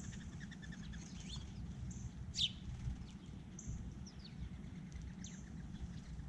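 Wild birds calling at a feeder: a fast trill of short notes at the start, then quick downward-sliding calls, the loudest about two and a half seconds in, and a short high note repeating every second or two, over a steady low rumble.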